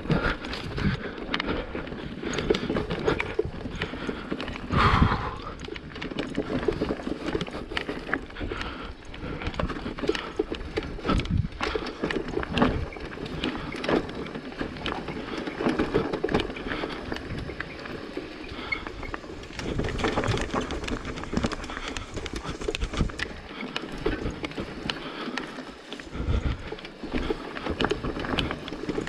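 Mountain bike rattling and knocking as it is ridden over rough, wet trail ground, with a dense, irregular clatter of tyre and frame impacts.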